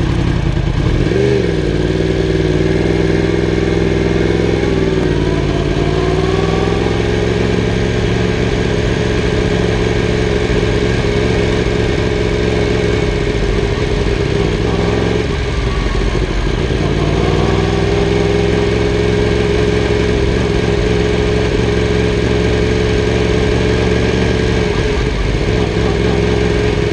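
Sport motorcycle engine running at low revs in first gear while the bike rolls slowly, its pitch rising and dipping a few times with small throttle changes.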